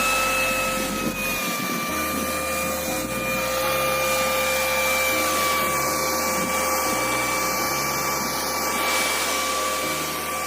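AGARO Ace 1600-watt wet and dry vacuum cleaner running in blower mode: a steady motor whine over a rush of air, its pitch dipping slightly about a second in.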